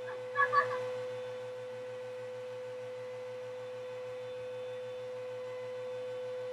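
Upright vacuum cleaner running steadily, a constant motor whine and hum. About half a second in, a short louder pitched sound cuts across it.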